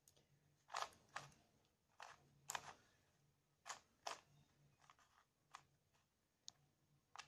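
Faint, scattered sharp clicks of a plastic Rubik's cube being turned and handled, about a dozen irregular clicks with some in quick pairs.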